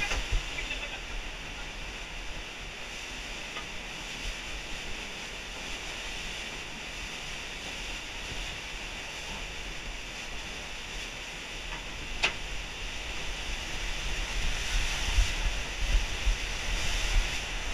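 Rushing, churning river water around a kayak, a steady hiss, with wind or handling rumble on the microphone swelling in the last few seconds. A single sharp knock about twelve seconds in.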